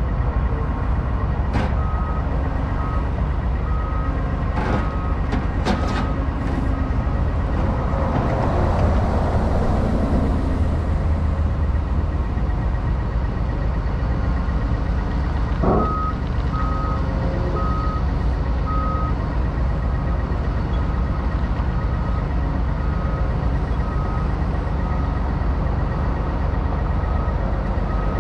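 Liebherr wheeled excavator driving up onto a lowboy trailer: its travel alarm beeps about once a second over the steady drone of its diesel engine. A few sharp clicks come in the first seconds, the machine noise swells for a few seconds about a third of the way in, and a single knock comes a little past halfway.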